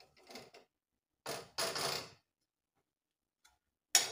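A metal slotted spoon scraping and rattling in a kadhai, with one longer scrape in the middle, then two sharp knocks of metal on the pan near the end.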